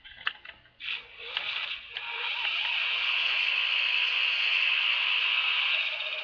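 A few computer clicks, then from about a second in the TV broadcast of the race: the steady noise of NASCAR stock cars running the road course, played back through a speaker, with a few brief rises and falls in pitch early on.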